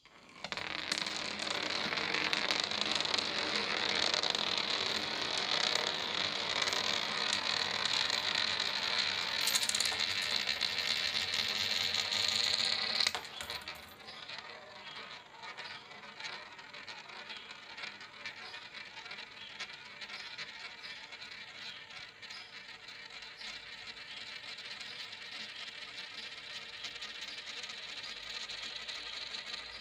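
A coin rolling round and round a steel spiral coin funnel, a continuous rolling whir. It is loud for the first half, drops abruptly about halfway through, and goes on more quietly as the coin keeps circling.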